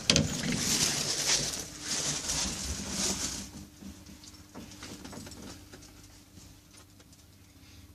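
Lift doors sliding, with a sharp knock at the start and a rustling hiss for a few seconds. Then a faint, steady low hum from the lift.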